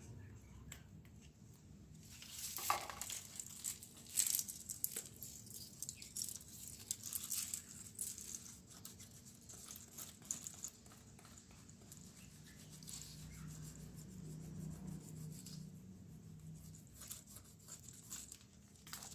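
Thin plastic sheet crinkling and crackling in irregular bursts as it is handled while glue is smoothed along it by hand.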